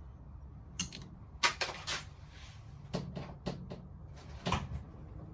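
Irregular sharp metallic clicks and snaps from a hand screw-cutting tool working on a 3.5 mm switch faceplate screw to cut it down to length, the loudest snap about a second and a half in.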